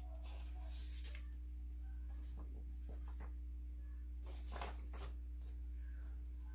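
Paper greeting cards being handled and stood up on a table, with a few soft rustles and light taps, over a steady low electrical hum.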